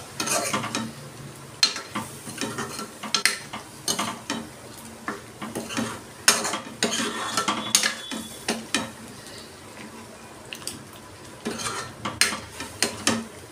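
Metal spoon stirring chicken and masala in a metal kadai, scraping and knocking against the pan in irregular strokes, with the masala sizzling faintly underneath.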